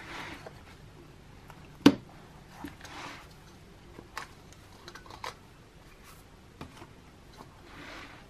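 Handling noises from a leather ring-bound planner: scattered light clicks and taps, one sharp click about two seconds in, and soft rustling of paper inserts.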